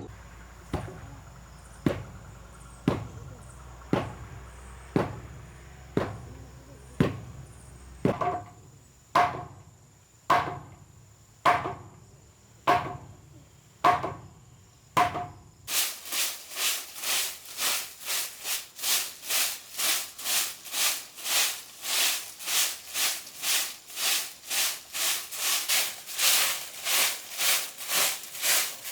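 Blows struck on timber about once a second, each with a short ring. About halfway through this gives way to quick, even back-and-forth rasping strokes, about two a second, of a hand saw cutting wood.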